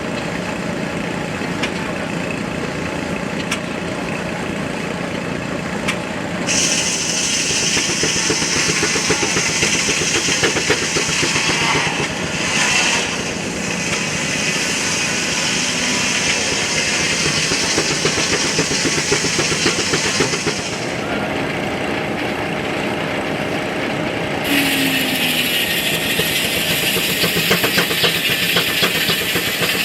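Steam-powered sawmill at work: steady running of the steam engine and mill machinery, with a long loud hiss coming in about six seconds in, dropping away for a few seconds, then returning near the end.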